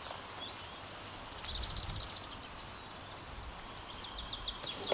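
Small songbird singing two quick runs of high chirps, about a second and a half in and again near the end, over a faint low rumble.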